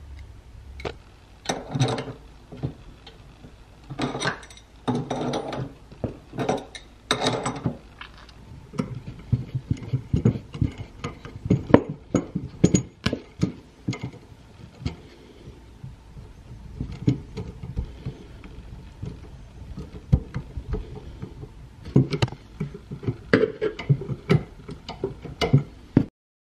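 Hand work on copper plumbing: irregular metallic clinks, knocks and scrapes of tools and fittings being handled, with a few short scraping spells.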